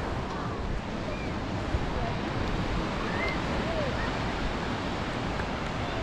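Surf washing onto a sandy beach: a steady, even rush of waves, with faint distant voices.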